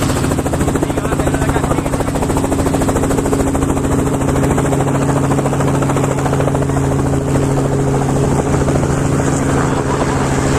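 Helicopter running steadily: a fast, even rotor beat over a constant low engine hum.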